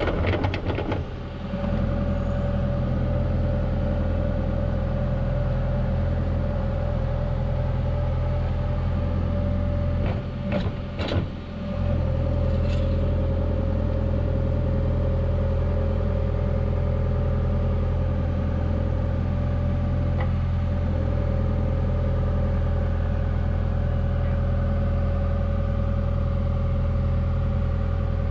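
Excavator's diesel engine running steadily, a constant hum with a steady high tone over it. A few sharp clicks and knocks come about ten to eleven seconds in.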